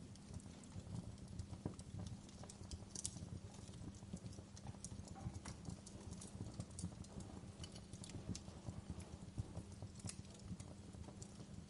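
Wood fire crackling in a fireplace: irregular sharp pops and snaps over a steady low rumble, with a soft even hiss of rain underneath.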